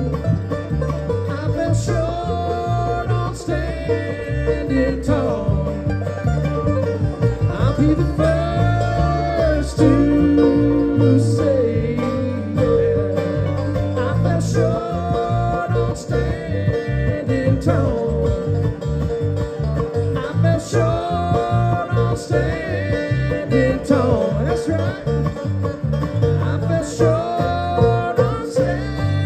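Live bluegrass band playing: banjo, mandolin, acoustic guitar and electric bass.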